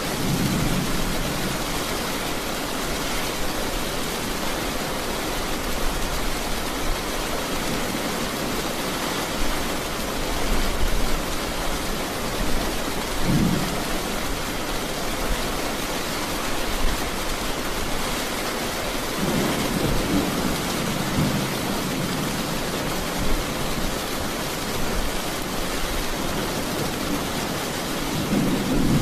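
Heavy, steady rain with thunder from a nearby storm: a low rumble at the start, a short one about halfway, a longer roll about two-thirds in, and another building near the end.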